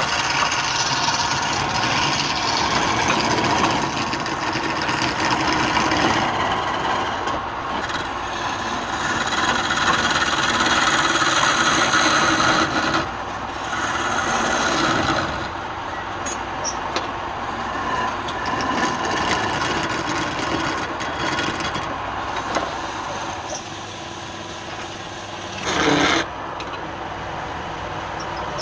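Wood being worked on a lathe: continuous rasping and scraping of a tool or abrasive against the spinning workpiece, rising and easing in loudness, with one short louder scrape near the end.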